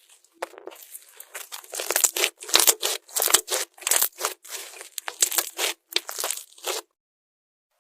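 Slime being squeezed and worked by hand, giving a quick, dense run of sharp crackles and pops that stops suddenly near the end.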